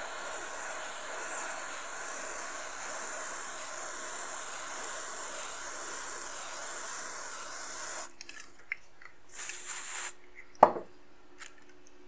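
Aerosol freeze spray hissing steadily onto a phone logic board for about eight seconds, then cutting off. It frosts the board so that the shorted component on the 2V6 line will show itself by heating up when voltage is injected. A few light clicks and one sharp knock follow near the end.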